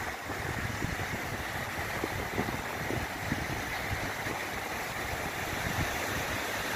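Small waves breaking and washing up a sandy beach, a steady surf hiss, with wind rumbling on the microphone.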